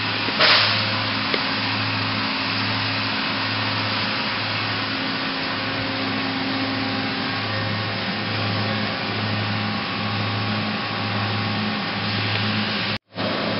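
Steady hiss and hum of running shop machinery, with a low hum that pulses about one and a half times a second. The sound cuts out for an instant near the end.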